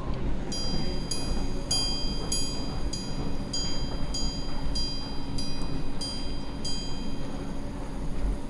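Minute repeater of the Jaquet Droz Parrot Repeater pocket watch striking its gongs: about a dozen clear, bell-like chimes, roughly two every second, that stop about seven seconds in.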